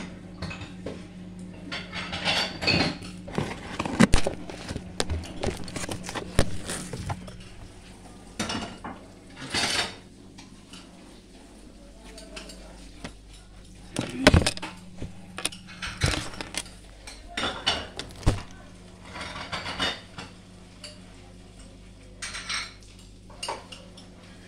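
Kitchen clatter: dishes, utensils and containers being handled and set down, with sharp knocks and clinks scattered irregularly through, over a steady low hum.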